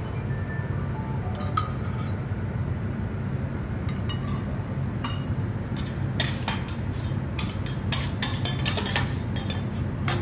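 Metal kitchen utensils clinking against steel cookware and a plate at a teppanyaki griddle: a few scattered clinks, then a quick run of clinks in the second half, over a steady low hum.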